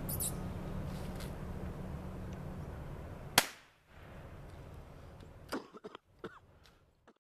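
A single gunshot about three and a half seconds in, dispatching a raccoon caught in a dog-proof trap, followed by a few faint clicks and knocks near the end.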